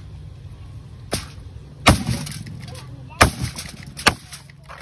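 Knife chopping through jerk chicken onto a wooden board: about five sharp chops at uneven spacing, the second and third the loudest.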